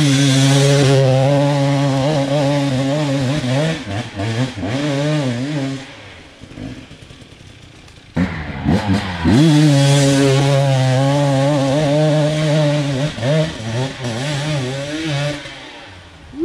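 Dirt bike engine riding a forest trail, its pitch rising and falling with the throttle. It eases off to a quiet low run about six seconds in, then revs up sharply again about eight seconds in and keeps pulling.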